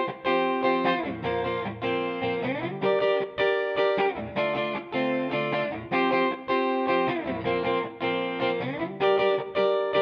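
Ibanez GRG170DX electric guitar played on a clean tone: picked notes and chords ring into each other in a flowing pattern, with the notes sliding in pitch twice.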